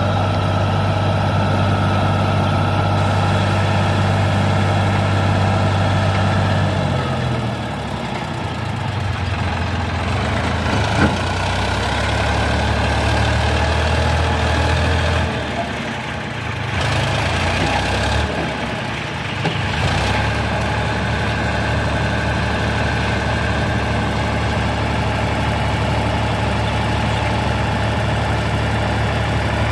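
Tractor diesel engine running steadily while its trailer tips up to unload. The engine note drops about seven seconds in, wavers and dips between about 15 and 20 seconds, then holds steady again.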